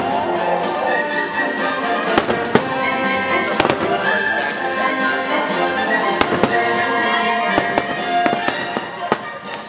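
Fireworks going off in a rapid series of sharp bangs, about two a second, as aerial shells burst and comets launch, over steady orchestral show music.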